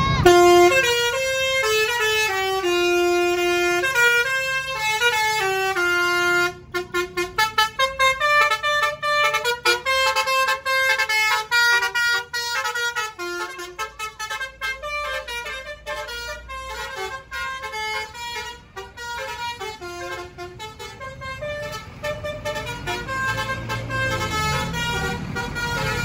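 A tour bus's basuri horn (the multi-tone 'telolet' horn) playing a tune. Held notes step up and down at first, then from about six seconds in the notes come in a fast stuttering string. The notes fade near the end, where a low bus-engine rumble comes up underneath.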